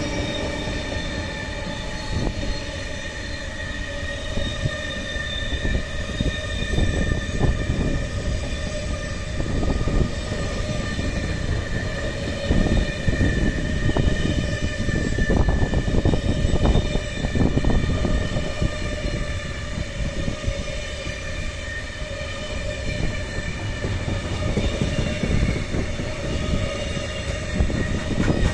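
A ČD Cargo freight train rolling past at close range, its wheels rumbling and clattering over the track, with a steady high squeal from the wheels throughout.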